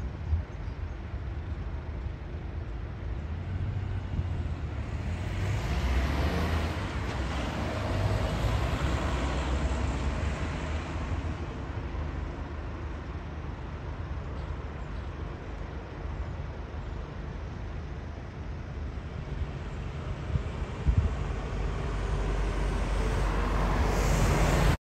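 Wind buffeting the microphone in a steady low rumble, with a jet airliner's engine noise swelling about five seconds in and dying away by about twelve seconds. The noise rises again near the end.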